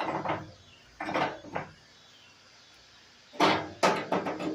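Loose metal stops clanking as they are set down and shifted about on a steel plate table top, in three short clusters of knocks.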